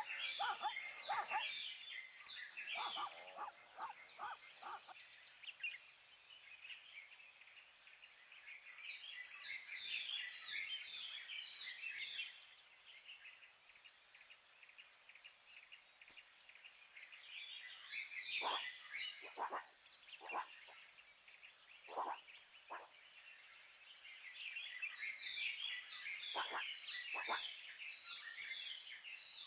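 Wildlife ambience of animal calls: bursts of quick, high chirping notes come and go, with short lower croaking calls in clusters near the start, in the middle and near the end.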